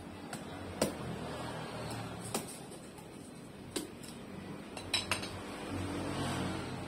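A metal cleaver chopping into a durian's thick, spiky husk: about six sharp knocks at uneven intervals. Near the end comes a longer rasping sound as the husk is pried apart by hand.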